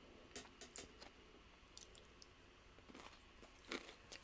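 Near silence with faint, scattered mouth clicks of quiet chewing, a few soft ticks, one a little louder near the end.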